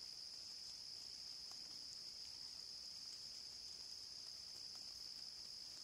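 Steady, faint, high-pitched insect chorus trilling without a break, with a few faint ticks.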